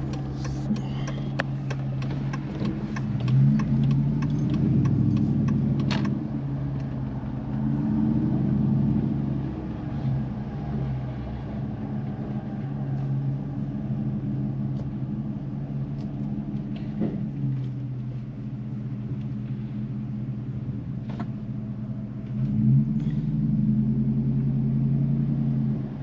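Car engine and road noise heard from inside the cabin while driving: a steady low hum that swells several times as the car speeds up. A run of light ticks sounds over the first six seconds.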